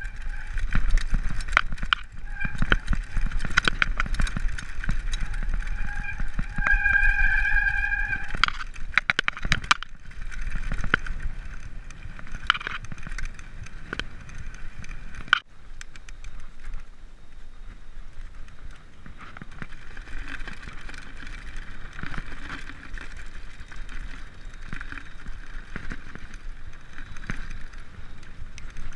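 Mountain bike ridden over a rough dirt singletrack: the chain and frame clatter and rattle over bumps as the tyres roll. About seven seconds in, a high ringing whine sounds for a second or two.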